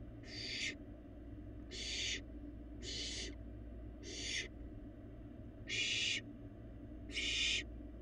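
Young barn owl giving its rasping, hissing begging call (the 'snore'): six breathy hisses of about half a second each, roughly one a second, the last two the loudest. A steady low electrical hum runs underneath.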